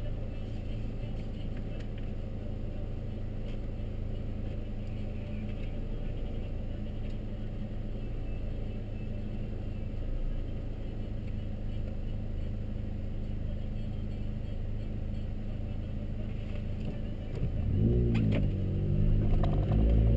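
Steady low engine idle heard from inside a car's cabin. About three-quarters of the way through, a competition car just ahead launches hard, its engine revving in repeated rising sweeps and getting louder.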